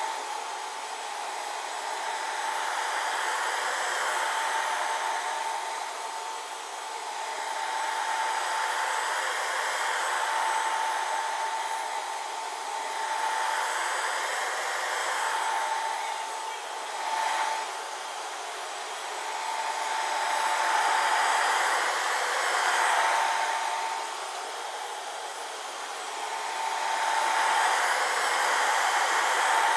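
Bissell ProHeat Advanced upright carpet cleaner running as it is pushed over the carpet: a steady motor whine under a suction hiss that swells and fades every few seconds.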